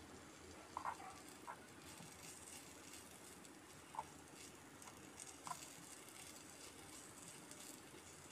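A spoon stirring prawn masala in a small pot: a handful of faint, light clicks as it touches the pot, over a low steady hiss.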